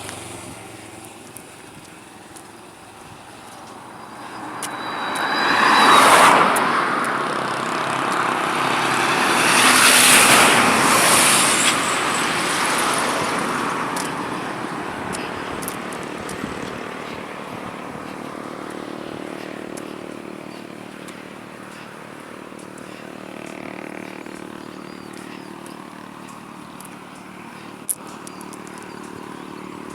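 Motor vehicles passing by one after another, each swelling up and fading away, the loudest about six and ten seconds in. After them a lower, steadier engine sound carries on.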